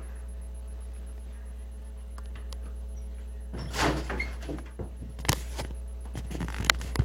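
A squeak a little past halfway through, then a few sharp knocks, over a steady low hum.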